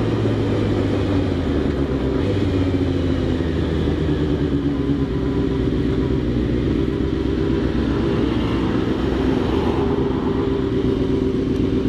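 Honda CBR600 F4 motorcycle's inline-four engine running steadily, with an odd noise that the owner suspects may come from the thermostat.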